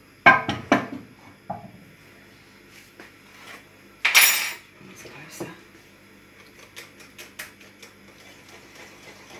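A frying pan set down on a gas hob's pan support with two sharp clanks near the start, then a utensil clinking and scraping in a ceramic bowl of batter: one loud scrape about four seconds in, followed by many small light ticks.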